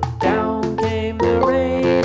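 Upbeat children's background music with plucked strings, a steady beat and what may be a singing voice.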